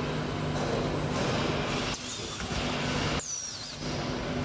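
Solar panel junction-box separating machine running: a steady mechanical hum and noise from the moving gantry head and its drives, with a short high falling squeal about three seconds in.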